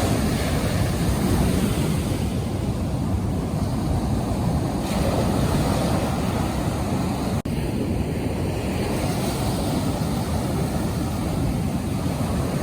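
Surf breaking on a sandy beach, a steady heavy wash of big dumping waves, with wind buffeting the microphone. The sound cuts out for an instant about seven seconds in.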